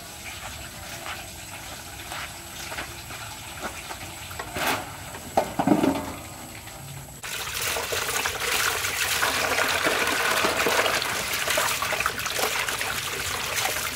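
Water running from a garden tap into a large metal basin, starting suddenly about halfway through and splashing as vegetables are rinsed under the stream. Before it, a few light knocks as the metal basin is handled.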